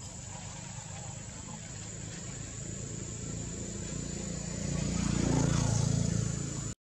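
A motor vehicle's engine approaching and passing close by, swelling to its loudest about five and a half seconds in, then cut off abruptly near the end.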